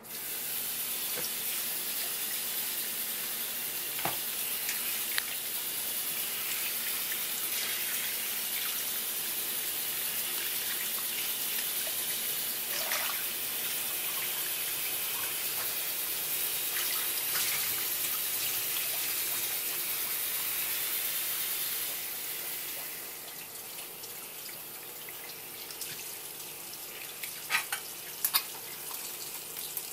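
Tap water running hard from a flexible hose into a stainless bowl of water, churning around a fish head being rinsed. About 22 seconds in it turns quieter as the stream falls onto the head on a wooden board, with a few sharp knocks near the end.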